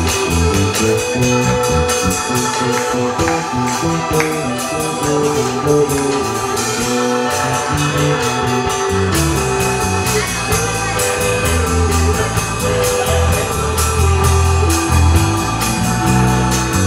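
Live band playing an instrumental passage: electric guitar and electric bass over a steady drum beat, with keyboards.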